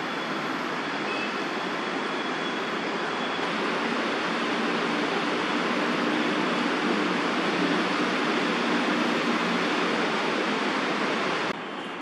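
Steady city traffic noise: an even rush of passing vehicles with a faint low engine drone in the middle and a few faint high notes near the start. It drops suddenly in level near the end.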